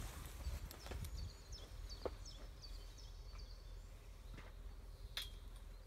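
Outdoor ambience: small birds singing in short, high chirps over a steady low rumble, with a few sharp clicks.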